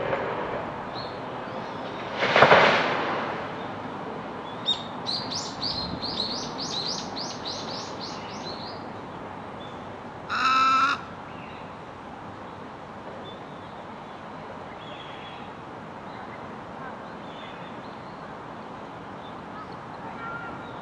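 Little egret giving a single harsh croak about two and a half seconds in, the loudest sound. A rapid run of high twittering notes from a small bird follows, then a short pitched call about ten seconds in, over a steady background hum.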